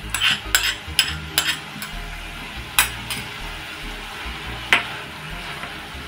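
Silicone spatula stirring and scraping thick tamarind chutney in a wok, over the steady sizzle of the simmering sauce. There is a quick run of scrapes in the first second and a half, then single ones near 3 s and nearly 5 s.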